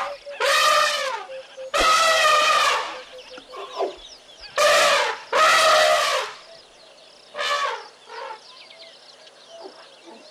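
Asian elephants calling: about five short, pitched trumpet-like calls, each under a second and arching up then down in pitch, with quiet gaps between them.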